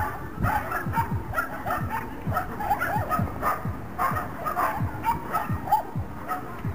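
A dog barking and yipping rapidly and over and over, in quick short barks several a second without a break.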